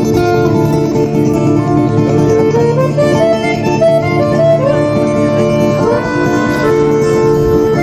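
Live acoustic folk band playing: a sustained accordion melody over strummed acoustic guitars.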